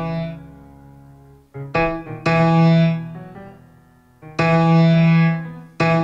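Piano playing slow chords, each struck and left to ring and fade. The loudest chords come about two and four and a half seconds in.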